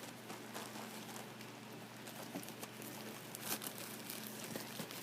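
Light rustling and crinkling of pad wrappers and packaging being handled, with scattered small clicks.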